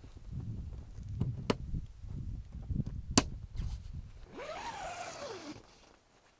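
Footsteps on snow, thudding about once a second, with two sharp clicks, the second the loudest. Near the end comes a short sound that rises and then falls in pitch, lasting about a second.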